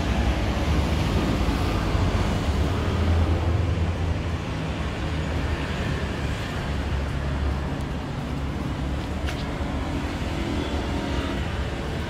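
Steady road traffic noise with a low rumble, a little louder in the first few seconds, and one short click about nine seconds in.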